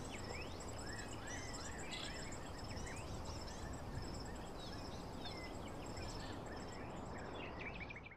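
Outdoor nature ambience: many small birds chirping and twittering, with a steady high insect trill, over an even hiss. It all cuts off suddenly at the end.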